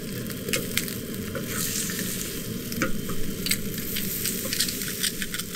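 Chicken eggs and trout roe sizzling in a frying pan, with a metal slotted turner scraping and clicking against the pan as they are stirred.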